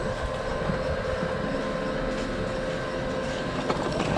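Leitner platter ski lift running at its station: a steady mechanical rumble from the turning bullwheel and haul rope, with a faint steady hum that fades out near the end.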